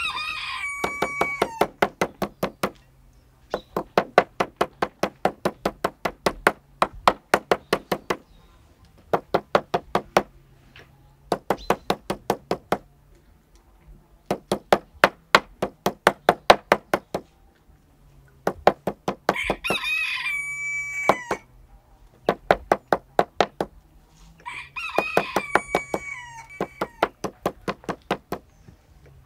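Metal meat mallet pounding raw meat slices on a wooden board, in bursts of about four or five blows a second with short pauses between. A rooster crows three times: at the start, about two-thirds through, and again a few seconds later.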